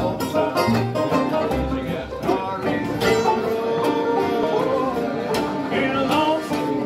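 Acoustic bluegrass jam: banjo, acoustic guitars, mandolins and upright bass playing a tune together, the banjo picking quick rolling notes over steady plucked bass.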